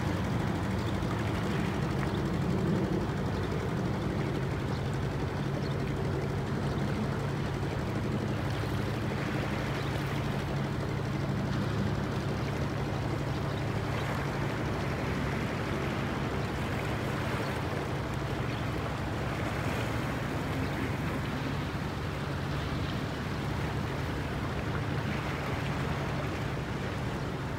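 Small fishing boat's engine running steadily with a low hum, with water splashing and rushing along the hull.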